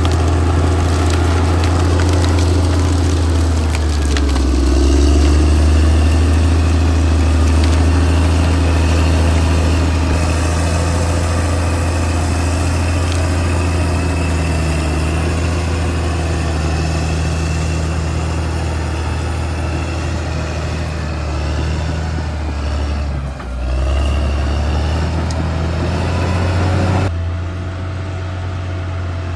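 Caterpillar D6R XL bulldozer's diesel engine running steadily with a deep hum and a high whine over it. The sound dips briefly about three-quarters of the way in, then turns quieter and duller near the end.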